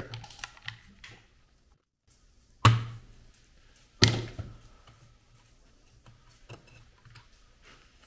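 Hands handling parts and tools on a motorcycle engine on a workbench: light clicks and two sharp knocks about a second and a half apart, while the gear shifting assembly is being worked loose.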